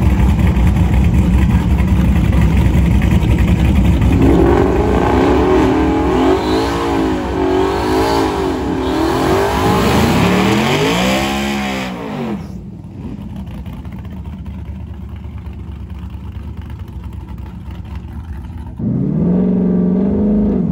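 Twin-turbocharged 2019 Ford Mustang GT's 5.0 V8 doing a burnout: the engine revs hard, its pitch rising and falling for several seconds while the rear tyres spin. About twelve seconds in it cuts back to a quieter, steady run, and it is louder again near the end.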